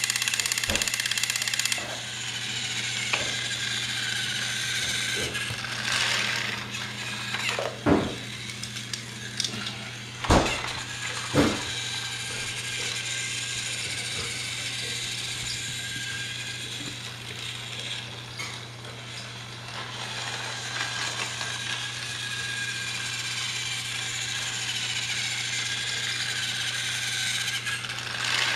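Battery-powered Thomas TrackMaster toy trains running on plastic track: a steady whirring gear motor with light clicking and rattling. There are three sharp knocks about a third of the way through.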